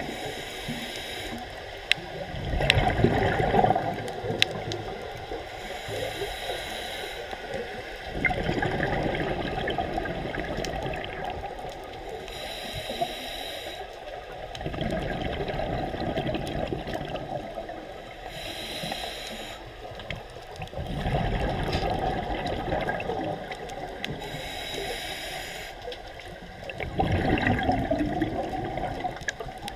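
Scuba diver breathing through a regulator, heard underwater: a quiet hiss on each inhale, then a louder gurgling rush of exhaled bubbles. About five breaths, one every six seconds or so.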